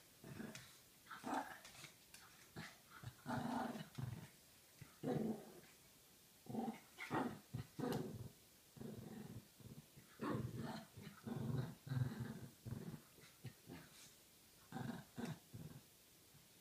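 Small dogs growling in many short, irregular bursts as they tussle over a dog bed.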